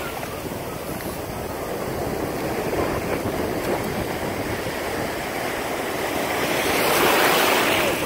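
Shallow surf washing in at the shoreline, a steady rush of water that swells louder near the end as a wave breaks close by.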